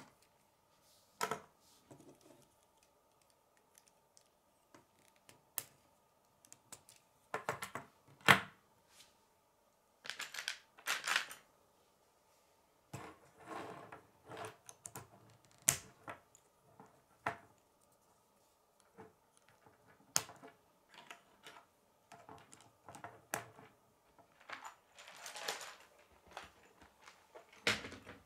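Plastic K'nex rods and connectors being handled and snapped together: irregular clicks and short bursts of clattering.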